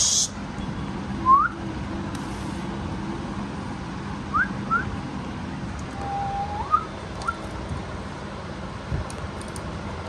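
A few short whistles, each sliding quickly upward, with one longer steady note a little past the middle that then glides up.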